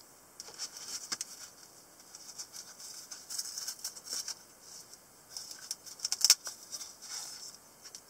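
Black nylon knife pouch handled and opened: scratchy rustling and rasping of the fabric as the flap is pulled open and a small knife is drawn out. Loudest a little after six seconds.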